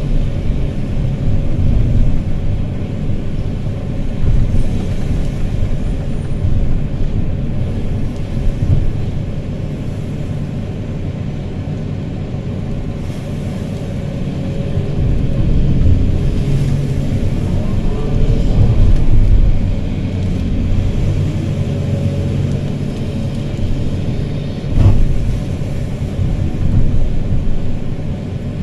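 Excavator's diesel engine running under load, its pitch and loudness rising and falling as the hydraulics work the boom and bucket to dump sand into a dump truck. A single sharp knock near the end.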